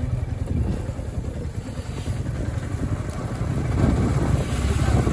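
Motorcycle engine running as the bike rides along, with steady low road and wind rumble, a little louder near the end.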